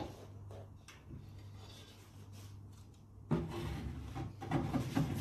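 Countertop toaster oven door clicking open, then about three seconds in a metal baking tray scraping and rattling as it is slid out along the oven rack. A low steady hum runs underneath.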